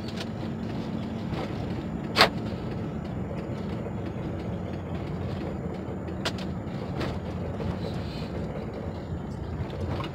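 Steady road and engine rumble of a car driving, heard from inside the cabin, with a single sharp knock about two seconds in and a couple of fainter ticks later.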